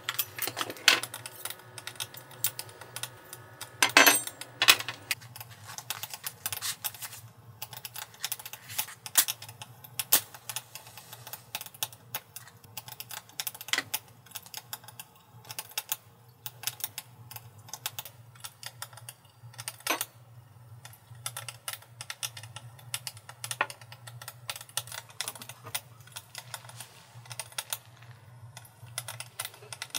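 Raindrops tapping irregularly on tent fabric, with a steady low hum underneath.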